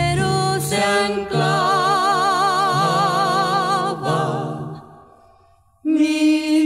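Background music: a Spanish-language song with voices holding a long note with wide vibrato. The note fades almost to silence about five seconds in, and the singing starts again near the end.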